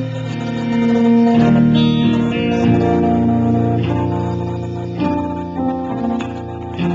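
Live band playing an instrumental passage: sustained chords on a Roland RD-700 stage piano with guitar, the chords changing every second or two.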